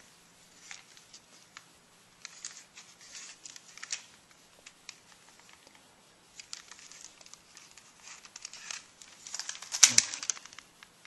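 A plastic Transformers action figure and its parts being handled: scattered light clicks and rustles, with a louder clatter about ten seconds in.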